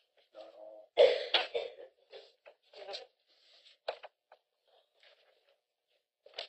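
A person coughing in a short, sharp run about a second in, then scattered soft rustles and clicks in a small room.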